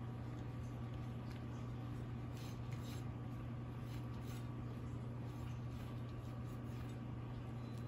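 Faint soft rustling of a spring roll pastry wrapper being rolled up by hand on a plate, over a steady low hum.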